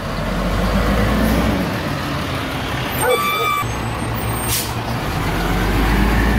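Diesel engine of a WhiteGMC Amrep Octo automated side-loader garbage truck running as the truck drives past. About three seconds in there is a short squeal, and a sharp air hiss follows about a second and a half later.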